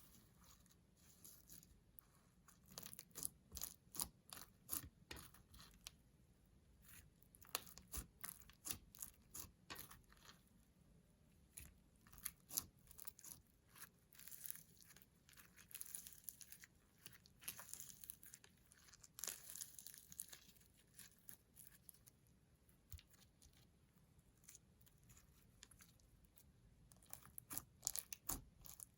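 Slime being worked and squished, giving quiet, irregular crackling pops and squelches in clusters, with a calmer stretch late on before the popping picks up again.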